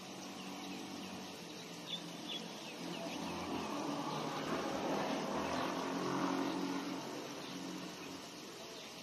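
A motor vehicle passing, its rushing noise swelling over a few seconds and fading away, over a steady low hum. A few faint high chirps about two seconds in.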